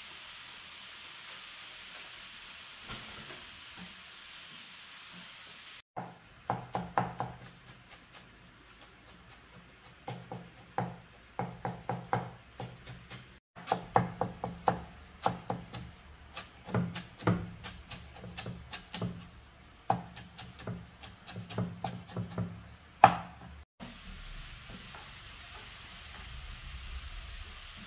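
Food sizzling faintly in a pan, then runs of quick sharp knocks of chopping on a wooden cutting board, several strokes a second, broken by abrupt cuts. The sizzling returns near the end.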